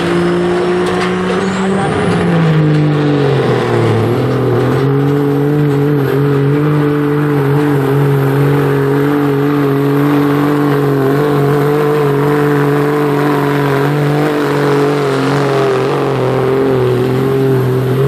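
2011 Dodge pickup's diesel engine run hard at steady high revs while dragging a weight sled. A high whistle rises over the first two seconds, the engine's pitch sags about three seconds in as the load comes on, then holds level under full load.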